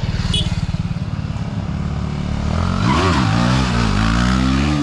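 Motorcycle engine running with a rapid low pulse, then revved sharply about three seconds in and held at uneven, higher revs.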